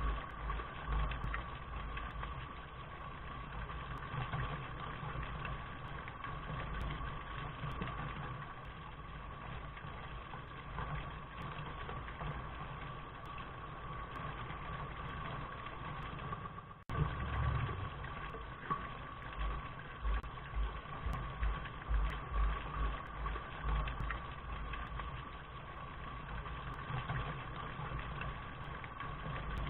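Steady rain with an uneven low rumble underneath. The sound drops out for an instant about 17 seconds in, then carries on the same.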